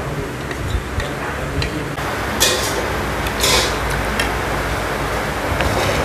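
Steady open-air restaurant background noise with scattered light ticks and clinks of tableware, and two short hissing scrapes about two and a half and three and a half seconds in.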